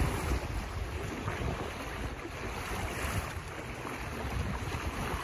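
Wind buffeting the microphone with a low uneven rumble, over the rushing wash of choppy sea water along a sailboat's hull.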